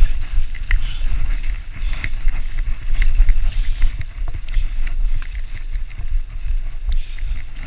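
Mountain bike riding fast down a rough, leaf-covered dirt trail: wind rumbling on the bike-mounted camera's microphone over tyre noise, with frequent sharp clicks and rattles from the bike over the bumps.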